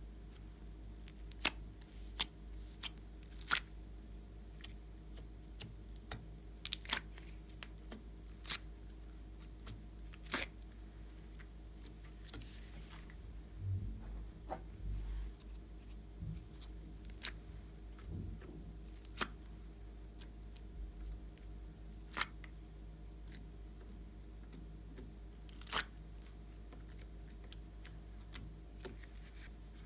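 Scattered sharp clicks, crackles and soft sticky pops as slime is handled: plastic slime containers being picked up and tipped, and slime pieces dropped into a glass tray. A faint steady hum lies underneath.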